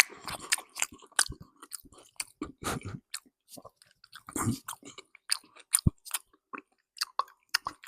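Close-miked chewing of bread: a quick, irregular run of wet mouth clicks and smacks as it is bitten and chewed.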